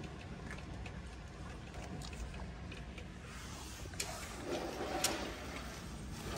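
Thunderstorm at night: a steady low rumble with rain noise, swelling past the middle, with two sharp taps near the end.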